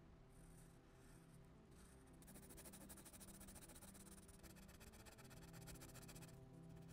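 Faint scratching of a Prismacolor Premier colored pencil stroking across paper, with soft sustained background music beneath it.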